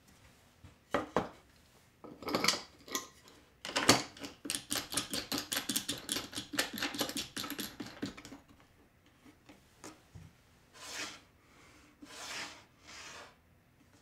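A wooden fence and MDF board being handled and fitted on a wooden workbench. First a few knocks, then a fast, even run of clicks for about four seconds, then two short scraping rubs near the end.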